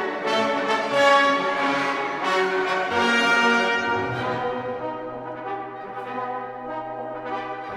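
Orchestral music with brass to the fore, sustained chords that grow softer and thinner over the second half.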